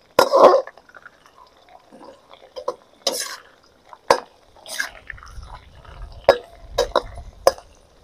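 Shrimp frying in hot oil in a steel wok, with a metal spatula knocking and scraping against the pan several times as the shrimp are turned.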